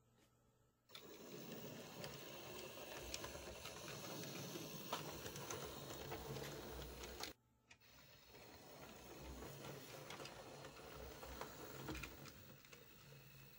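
OO gauge model locomotive running on the layout: a faint steady whirr from its small electric motor, with light clicks of wheels on the rails. The sound starts about a second in, cuts out abruptly around seven seconds in, and comes back more quietly moments later.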